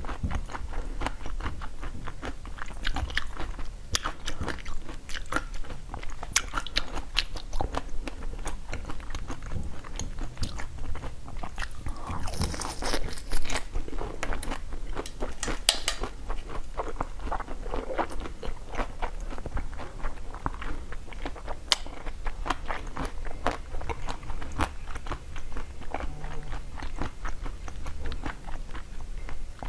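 Close-miked biting and chewing of frozen blue chocolate-coated treats on sticks: many sharp crunches of the hard frozen shell with chewing between, the loudest bite about thirteen seconds in.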